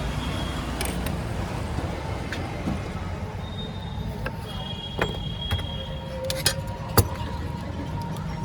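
Roadside street noise: a steady traffic rumble, with a few sharp clicks and knocks between about five and seven seconds in.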